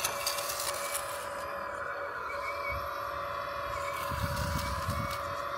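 Hydraulic pump of a 1/14-scale CAT 330F RC excavator whining steadily, its pitch dipping and recovering as the bucket is forced into hard soil. Gritty scraping of the metal bucket in the dirt comes near the start and again about four seconds in.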